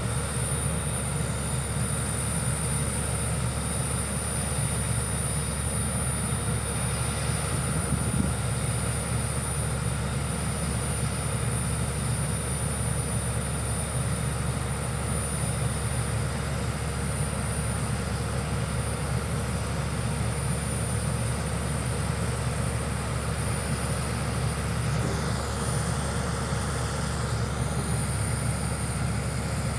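Heavy diesel engine of construction equipment running steadily, a low, even drone.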